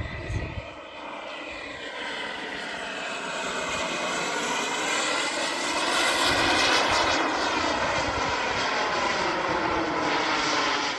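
Radio-controlled BD-5 model aircraft flying past, its motor note climbing in pitch and loudness to a peak about six to seven seconds in, then dropping in pitch as it moves away.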